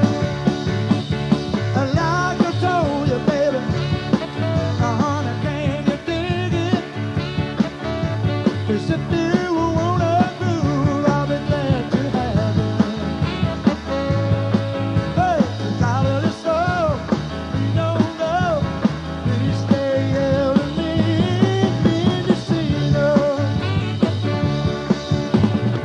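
Live country-rock band playing with a steady beat: electric guitar, keyboards, bass, drums and horns.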